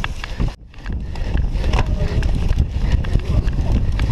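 Wind buffeting the microphone over a steady low rumble, with the rattles and knocks of a cyclocross bike being ridden hard over bumpy, rutted grass. The sound drops out briefly about half a second in.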